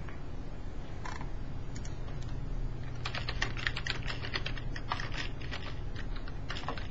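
Typing on a computer keyboard: a few scattered key clicks, then a quick run of keystrokes from about three seconds in, over a steady low hum.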